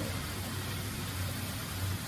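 Steady low machine hum with an even background hiss.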